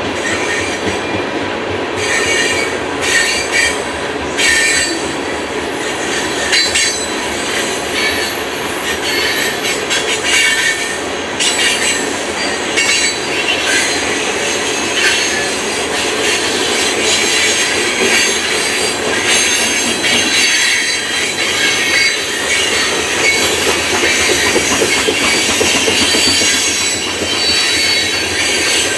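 Coal cars of a long freight train rolling past: steel wheels on rail make a steady rumble, with high-pitched wheel squeal and intermittent clicks as the wheels cross rail joints.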